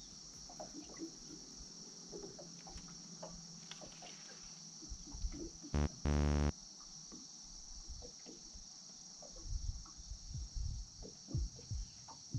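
Steady high-pitched chorus of autumn insects. About six seconds in, a brief loud cry as a hooked bass comes off the line, and low thumps follow near the end.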